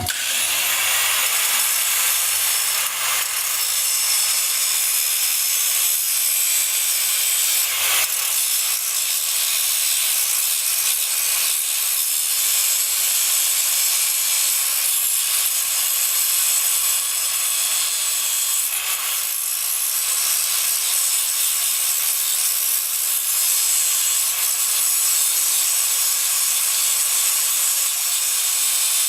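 Power grinder spinning up and then grinding steel steadily and loudly, smoothing down fresh welds.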